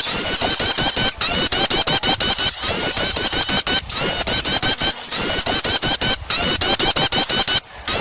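Small songbirds chattering in a loud bird-lure recording: a dense stream of high, quick chirps repeated several times a second, broken by brief pauses.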